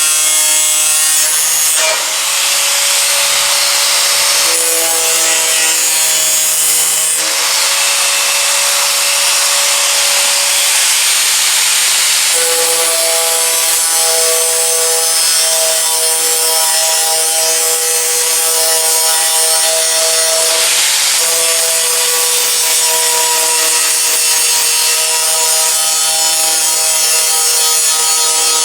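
Handheld power tool cutting or grinding the sheet steel of a truck hood, running without a break: a dense gritty hiss over a whine that shifts in pitch every few seconds.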